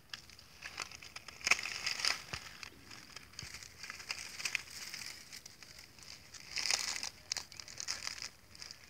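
Ground pangolin digging with its front claws into a mound of red soil. Dry leaves, grass and earth crackle and scrape in irregular bursts, loudest about a second and a half in and again near seven seconds.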